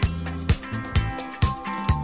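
Music with a steady beat, about two beats a second.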